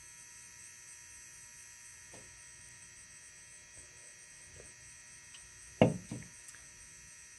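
Faint steady electrical hum and whine. About six seconds in there is a short loud thump, then a smaller one.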